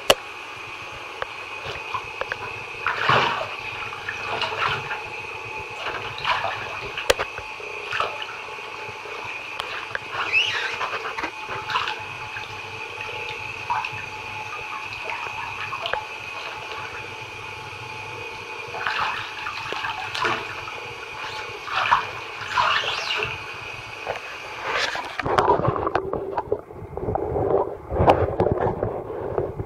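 Bath tap running into a full bathtub, a steady hiss, with splashing and sloshing every second or two as booted feet move through the water. About 25 seconds in the sound turns muffled and lower, the hiss gone.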